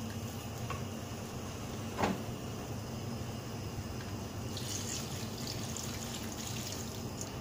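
Warmed milk poured from a saucepan into a steel pan of fried flour, onion and lard, a splashing pour that starts about four and a half seconds in. A single knock about two seconds in, over a steady low background.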